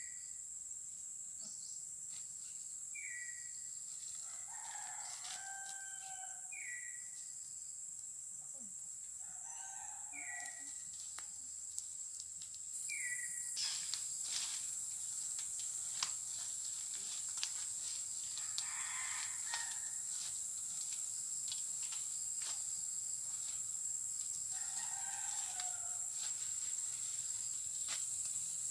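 Roosters crowing several times over a steady high insect drone. From about halfway through, rustling and snapping of undergrowth as people walk through ferns and pick shoots.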